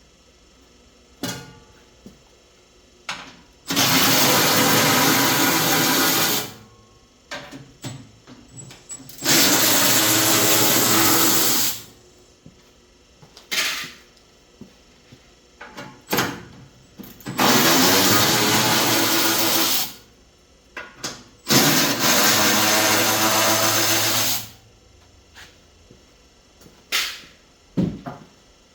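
Power drill running in four bursts of two to three seconds each, with short clicks and knocks of tools between the bursts.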